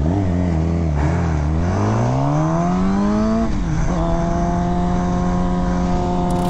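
Sport motorcycle engine pulling away: the revs waver at first, then climb in a rising pitch under acceleration. Near the middle the pitch drops sharply at a gear change, and the engine then holds steady revs.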